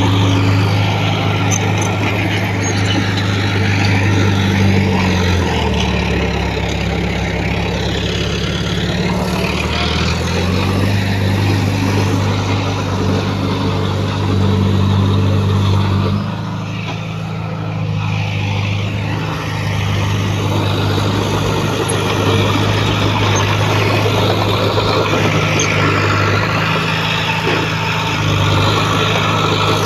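Heavy diesel engine of earthmoving equipment running steadily, its pitch dropping for a few seconds about five seconds in, then rising again, and easing briefly just past the middle.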